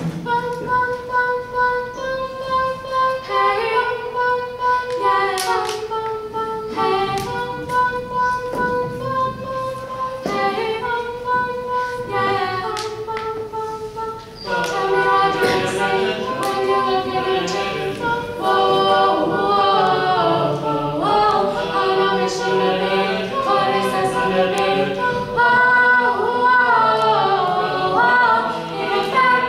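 Four teenage singers, boys and girls, singing a four-part a cappella arrangement. Held chords with moving lines for the first half, becoming louder and fuller about halfway through.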